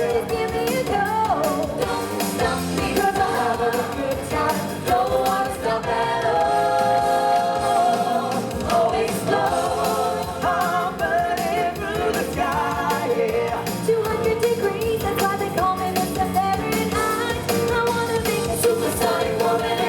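Live singers performing an upbeat pop song over loud band backing music, holding long notes partway through.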